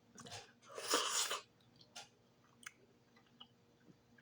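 Close-miked chewing and mouth sounds while eating, with a louder, longer hiss-like noise about a second in and a few faint clicks after.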